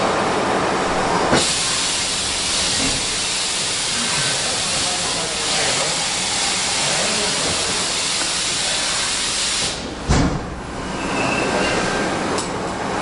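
Deckel Maho DMC 104 V linear vertical machining center running, with a loud steady hiss that starts abruptly about a second in and cuts off shortly before a single thump about ten seconds in.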